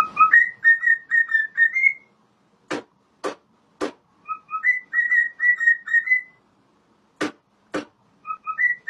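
Pet bird whistling the same short tune three times over: two lower notes, then a quick run of higher notes. Sharp clicks come in the gaps between the phrases, three after the first and two after the second.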